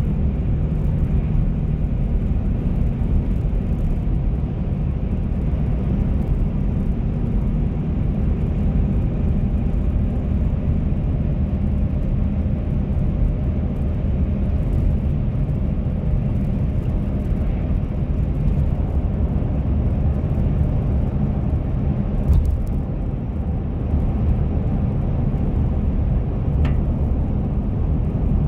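Steady low rumble of a car driving at road speed, engine and tyre noise heard from inside the cabin. A single short click sounds about three quarters of the way through.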